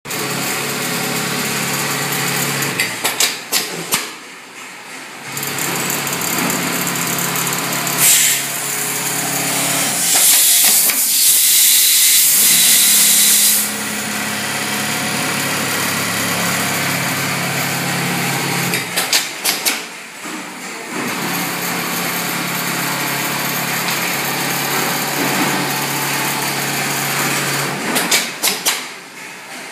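Computer-controlled industrial pattern sewing machine stitching at a steady speed. It breaks off three times with a quick series of sharp clicks, and a loud hiss lasts for about three seconds midway.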